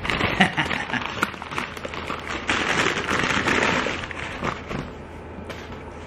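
Foil burger wrapper crinkling as it is crumpled and handled: a dense crackle of small clicks, loudest about two and a half to four seconds in, then dying down.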